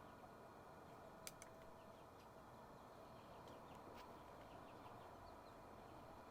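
Near silence: faint outdoor background with two faint clicks about a second in.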